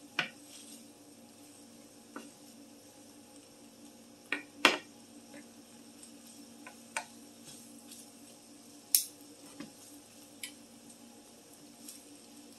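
Wooden spatula stirring and turning fried rice with vegetables in a square nonstick skillet, giving scattered sharp knocks and taps as it strikes the pan, the loudest about nine seconds in, over a faint steady hum.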